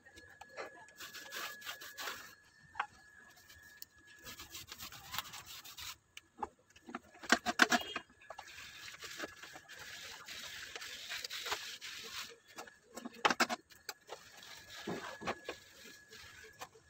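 Paint roller rubbing and rasping as it is worked with textured exterior paint, with two louder bursts of scraping about seven and thirteen seconds in.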